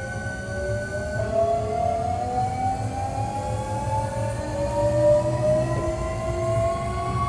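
Hankyu 1300-series electric train's traction motors and inverter whining as the train accelerates, several tones rising slowly together in pitch over a steady rumble of running gear. About a second in, a high steady tone cuts off and the pattern of tones shifts. This is a unit known for its unusual acceleration and braking sound.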